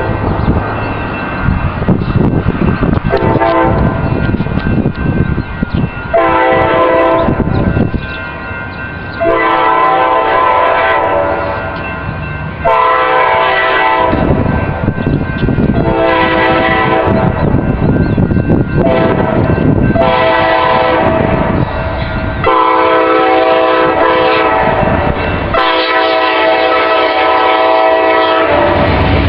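Amtrak locomotive's Nathan K5LA five-chime air horn played as a horn show: a string of about nine long chord blasts with short breaks between them. A low rumble of the train runs underneath, heaviest in the first few seconds.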